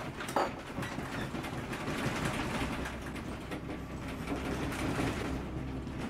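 A room shaking in an earthquake: faint rattling and clicking of its fittings over a low rumble that grows a little louder about halfway through, with one sharper click near the start.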